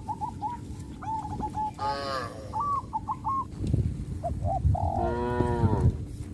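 Birds chirping in short repeated notes, with two brief cattle calls, one about two seconds in and a longer one about five seconds in, over low shuffling and rustling in the second half.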